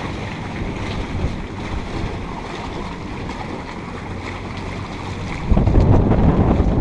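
Strong wind buffeting the microphone, with choppy harbour water washing around the moored boat. A heavier gust comes in about five and a half seconds in.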